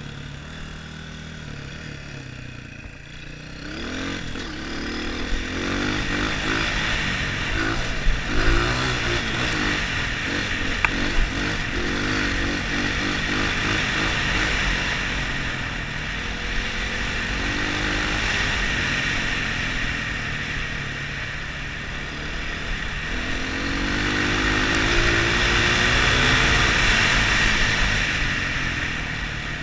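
Dirt bike engine running hard, heard from the rider's position. It throttles up about four seconds in, then its pitch rises and falls repeatedly as the rider opens and closes the throttle. A few sharp knocks come through in the middle.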